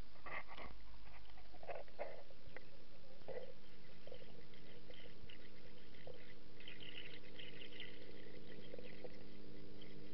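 Aquarium water sloshing and bubbling with scattered crackles. From about three and a half seconds in, a steady low mechanical hum, like the tank's filter pump, runs underneath.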